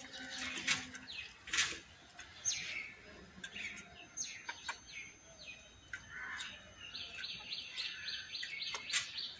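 Small birds chirping in short high notes, turning into a fast, even run of chirps about seven seconds in, with two sharp clicks in the first two seconds.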